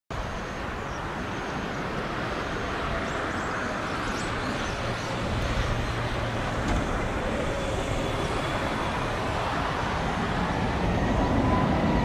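Jet engines of an approaching Boeing 777-300ER on final approach: a steady rushing roar that slowly grows louder as the airliner nears. In the last few seconds a faint engine whine slides down in pitch.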